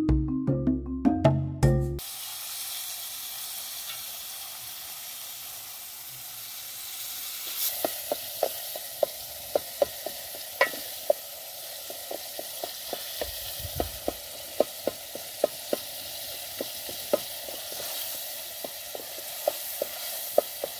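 A couple of seconds of mallet-percussion music, then chopped tomatoes and onions sizzling steadily in oil in an aluminium pot over a wood fire. From about a third of the way in, a wooden spoon stirring knocks against the pot in a run of sharp clicks, about two a second.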